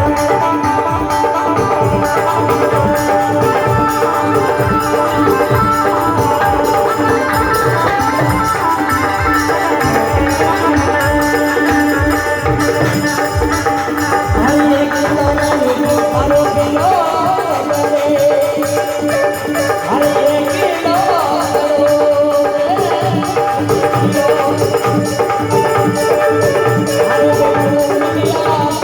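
Marwari folk music with no singing: a tabla-like hand drum keeps a steady rhythm under sustained melodic tones.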